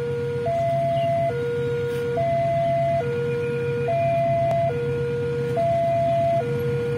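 Railway level-crossing warning alarm sounding while the barriers are down, signalling an approaching train. It is an electronic two-tone signal that alternates between a higher and a lower note, changing about once a second. A steady low hum runs underneath.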